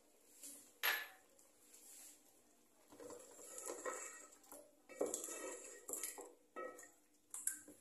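A spatula stirring and scraping chicken pieces in a metal cooking pot. A sharp clink about a second in is the loudest sound, followed by short bursts of scraping and clatter against the pot.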